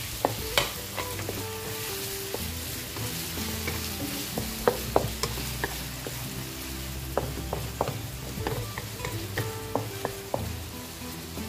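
Onions and tomato wedges sizzling in hot oil in a wok while a wooden spatula stirs and scrapes them, with irregular sharp knocks of the spatula against the pan.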